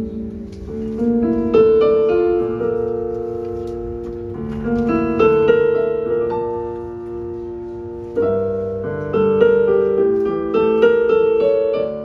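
Piano-voiced stage keyboard playing an instrumental passage of chords and a melody between sung lines, each chord struck and left to fade, with louder chords struck several times in the second half.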